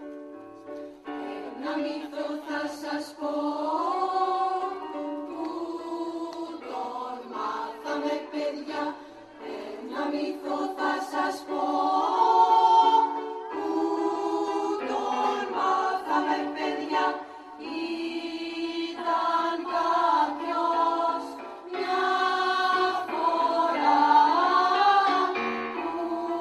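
Mixed choir singing with electric keyboard accompaniment; sustained notes sound first and the voices come in about a second in.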